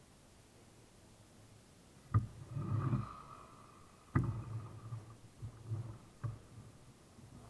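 Handling noises: a sharp click about two seconds in, followed by a short rustle and low rumble, a second sharp click about two seconds later, then a softer click.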